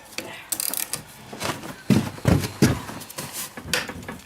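Workshop handling noises on a small bike: scattered clicks and knocks, loudest a few dull thumps about two seconds in as a part of the bike is pushed.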